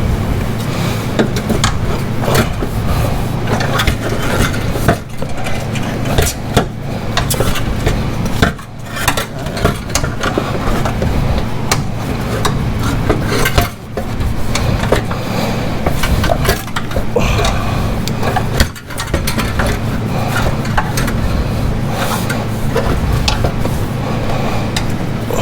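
Irregular metallic clanking, clinking and knocking as the Polaris Slingshot's stock exhaust pipe and its retaining springs are pried and worked loose from the mounts, over a steady low hum.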